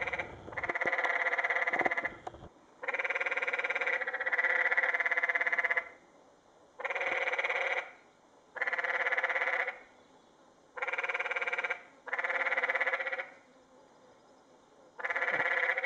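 Canyon tree frogs calling, males' mating calls: a run of loud, rapidly pulsed rattling trills, each about one to two seconds long, repeated with short pauses between.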